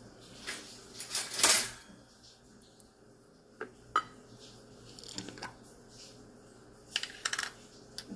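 Metal utensil scraping and clinking against a glass jam jar: a series of short scrapes and sharp clicks, the loudest about a second and a half in.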